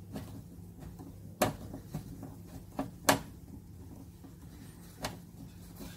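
Sharp clicks and knocks, a second or two apart, of a long screwdriver driving a mounting screw through a speaker's frame into a car door, the loudest about three seconds in, over a low steady hum.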